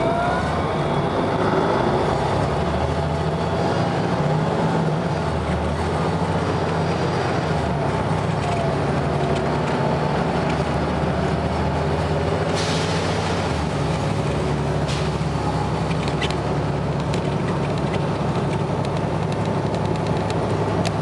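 Volvo B7RLE bus engine running, with a rising whine in the first second and a short hiss of air about twelve seconds in.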